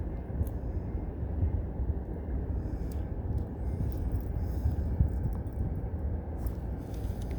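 Shimano 22 Stella 4000XG spinning reel being cranked under load, with faint irregular clicks that fit the knocking the owner takes for a fault in the reel. Wind rumble on the microphone is the loudest sound.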